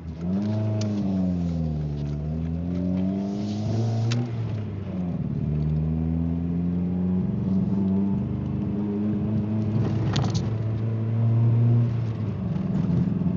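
Ford Escort ZX2's four-cylinder engine running under way with a bad misfire. The revs climb sharply at the start, dip and rise again, then settle to a steady drone.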